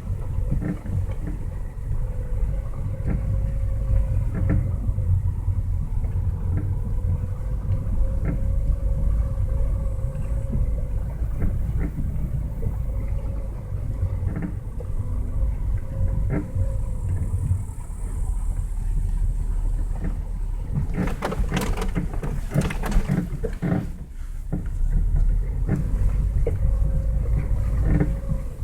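2018 Lada Vesta SW being driven, heard from inside: a steady road and tyre rumble with scattered short clicks and creaks from the front suspension, the squeak that is the subject of the video. A cluster of louder sharp knocks and creaks comes about three quarters of the way through.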